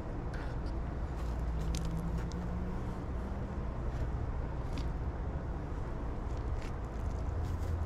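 Steady low rumble of a vehicle engine, with its tone rising slowly about two seconds in, and a few faint clicks.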